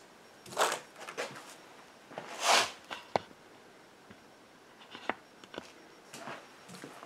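A few short rustling noises and several sharp clicks, the loudest rustle about two and a half seconds in.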